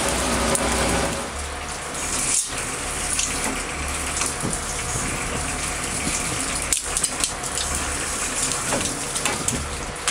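Water rushing and splashing over a low steady hum, broken by two brief dropouts.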